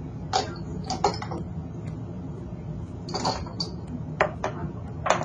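Glass test tubes knocking and clinking against a beaker and against each other as they are set down and picked up: a handful of short, sharp clicks. Under them runs the steady hum of the fume hood's extraction fan.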